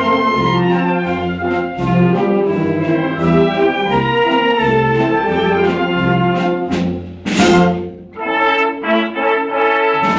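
Youth concert band playing, with brass leading over clarinets and a pulsing bass line; a loud crash rings out about seven seconds in.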